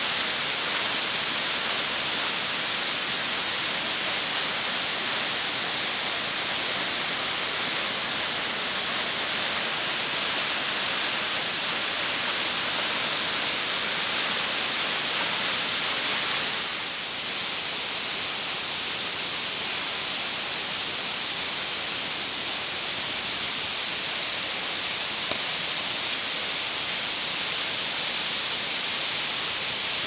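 Tall waterfall plunging onto rocks at its base: a steady rush of falling water, with a brief slight dip partway through.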